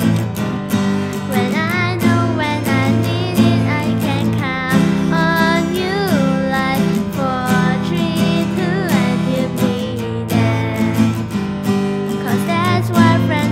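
Acoustic guitar strummed in a steady rhythm, with a girl singing over it.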